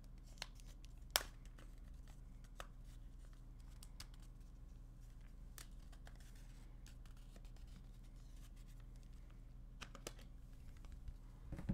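Faint, sparse clicks and light scratching of plastic as the back cover of a PinePhone Pro smartphone is worked loose and pried off its clips, with one sharper snap about a second in.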